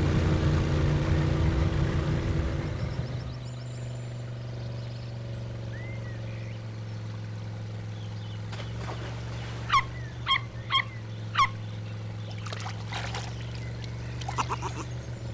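A cartoon amphibious jeep's motor humming steadily on the water, after a loud surge of motor and splashing in the first few seconds. Four short, high chirps come close together about ten seconds in, and more chirps come near the end.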